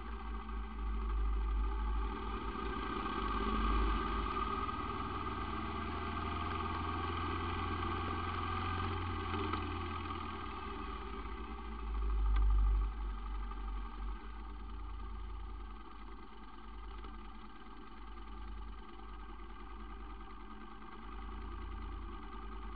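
Moto Guzzi motorcycle engine running while riding, with heavy wind rumble on the microphone. About thirteen seconds in, the wind rumble drops away and the engine settles to a quieter, steadier sound as the bike slows toward idle.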